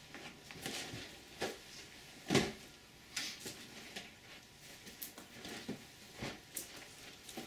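Cardboard model kit boxes being handled and set down on a wooden table: a string of light knocks and rustles, the loudest about two and a half seconds in.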